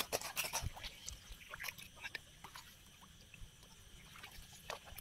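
Water dripping and small splashes with handling clicks as a hand landing net is worked over a weedy pond, busiest in the first two seconds and then thinning to occasional ticks.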